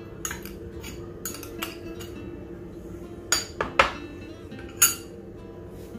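Glass bowl clinking against a steel mixer-grinder jar as chopped kiwi pieces are tipped in: a handful of separate sharp clinks, the loudest a little past halfway. Soft background music underneath.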